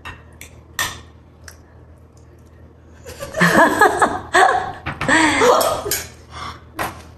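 Forks clicking against plates a few times, then, about three seconds in, girls laughing with wordless vocal sounds for about three seconds as they taste the food.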